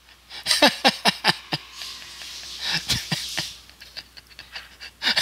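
A man laughing hard and almost without voice, in quick breathy gasps. A run of short bursts comes about a second in, a longer breathy stretch follows midway, and more quick bursts come near the end.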